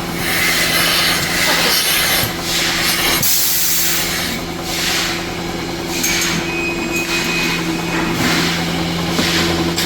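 Dairy milking-parlour machinery running: a steady mechanical hum with a hissing, rubbing noise that swells and fades roughly once a second.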